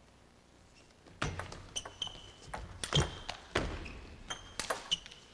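Table tennis rally: the celluloid ball clicking sharply off rackets and table in quick, irregular succession, starting about a second in, some hits followed by a short high ring.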